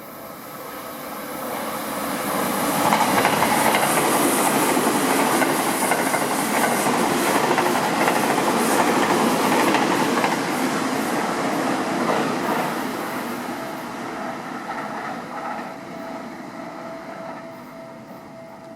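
Seibu 20000 series electric train passing through the station: the rumble and clicking of its wheels over rail joints swells over the first few seconds, holds for about ten seconds, then fades away.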